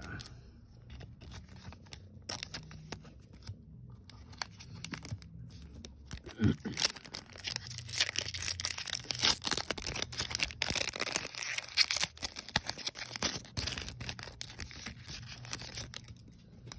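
A foil Pokémon booster pack being torn open and crinkled by hand. A few light clicks and rustles come first, then dense crackling from about six seconds in, easing off a couple of seconds before the end.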